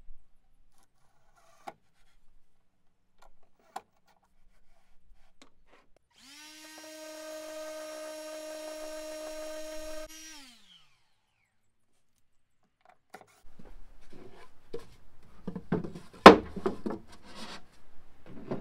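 A cordless random orbit sander runs for about four seconds, sanding the edge of an MDF disc. Its motor rises in pitch as it starts and winds down when it is switched off. Near the end comes a run of sharp knocks and clatter, louder than the sander.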